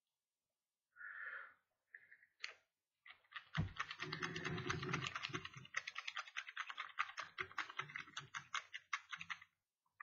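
A lock pick scraping and clicking rapidly against the pins of a Master Lock No. 3 laminated steel padlock held under a tension tool. It is a fast run of small metallic clicks starting about three seconds in and stopping shortly before the end.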